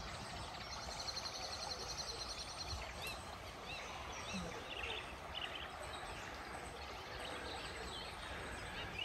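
Countryside ambience: small birds singing, with a rapid high trill about a second in and then scattered high chirps, over a steady soft hiss.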